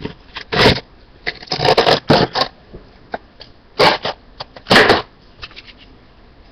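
Small cardboard box being cut apart and handled: irregular short crunches and scrapes, a few of them louder.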